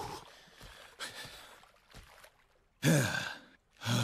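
A deep male cartoon character's voice making wordless sounds: faint breathy noises, then about three seconds in a loud sigh with a wavering pitch, and a second, shorter sigh near the end.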